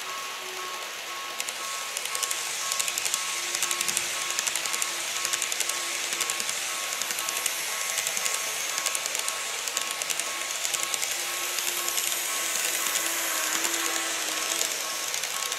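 Model railway level-crossing warning sound beeping in a steady repeated pattern. From about a second and a half in, model trains (E257 series and E233 series 3000) pass the crossing with a rapid clatter of wheels over the rail joints.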